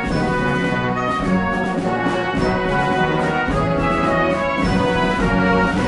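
Orchestral background music with brass, playing steadily.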